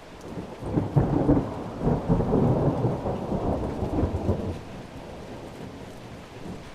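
A rumble of thunder that builds about half a second in, is loudest for a few seconds, then dies down into the steady hiss of rain.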